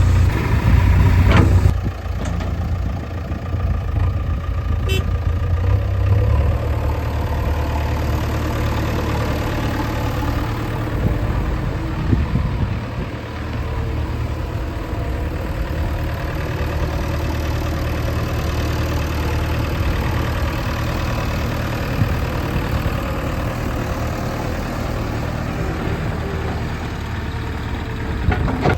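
Diesel engine of a JCB backhoe loader running steadily, louder for the first two seconds, with a couple of short knocks about a second and a half in and again around five seconds.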